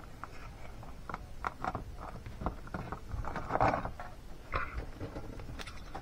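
Hands handling cardstock on a cutting mat: scattered light taps, rustles and scrapes of paper, with a louder rustle a little past the middle.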